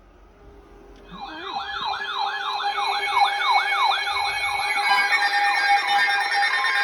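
Weather alert radios going off for a new severe thunderstorm warning. From about a second in, a siren-like alarm sweeps up and down about three times a second, and other receivers join with steady and beeping alarm tones that build up through the rest.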